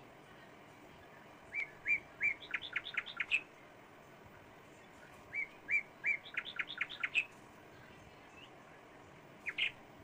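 A songbird singing the same short phrase twice: three spaced notes, then a quick run of higher notes. Another phrase begins near the end.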